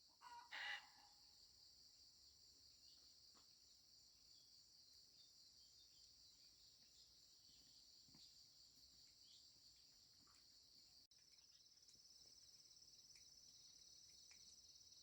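Steady high drone of crickets or other insects, with a brief chicken call under a second in.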